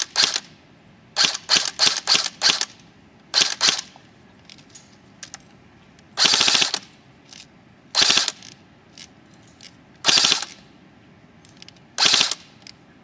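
Echo 1 G3 electric airsoft rifle firing. It fires several single semi-auto shots, then four short full-auto bursts about two seconds apart.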